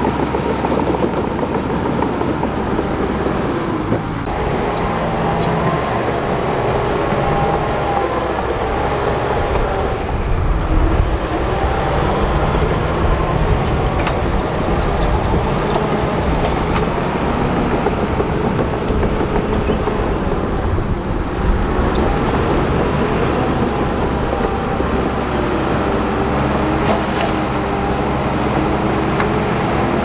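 Shantui DH17 crawler bulldozer's diesel engine working steadily, its pitch rising and falling as the blade pushes soil under load.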